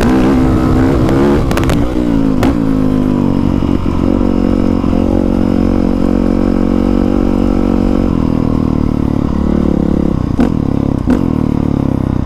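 Honda CRF450R dirt bike's single-cylinder four-stroke engine running under riding, its revs rising and falling for the first couple of seconds and then held steady. A few sharp knocks are heard along the way.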